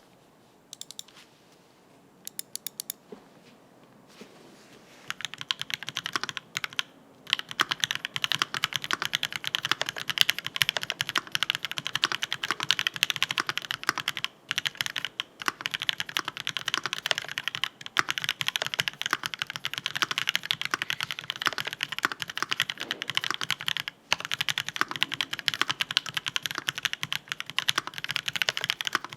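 Typing on a MONSTAR XO V3 custom mechanical keyboard with Marshmallow switches, a brass plate and Aifei ABS keycaps. A few scattered key presses are followed, about five seconds in, by fast continuous typing: a dense stream of key clacks with a few short breaks.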